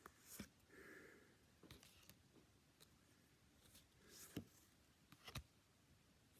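Near silence, with a few faint clicks and soft rustles from trading cards being handled.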